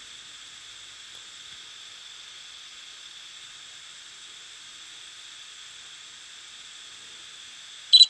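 Steady electronic hiss, like recording noise, with a single short, loud high beep from a device right at the end.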